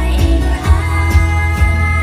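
Live pop song over an arena sound system: a steady beat with a female singer. A long note is held through the second half.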